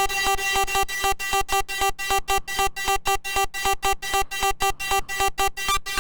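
Serum 2 sawtooth lead synth, hard-synced and chopped by a volume LFO into short buzzy stabs about four a second, run through distortion, OTT multiband compression and reverb as a hard techno lead.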